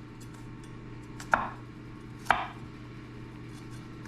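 Kitchen knife knocking on a cutting board twice, about a second apart, as garlic cloves are cut up for mincing.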